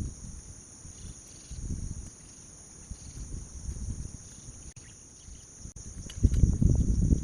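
Insects keep up a steady high-pitched drone while wind buffets the microphone in low rumbling gusts, which become much louder about six seconds in.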